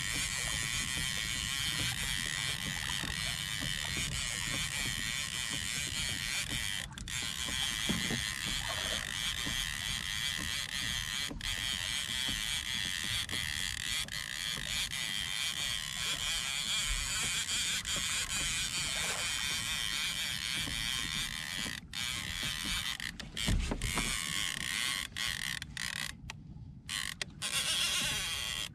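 Fishing reel whirring and creaking steadily under load as a fish is fought on the rod, with a louder thump near the end.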